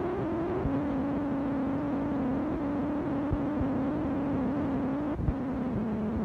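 A machine running steadily with a humming tone that drops in pitch twice, over a low rumble, with a single thump about five seconds in.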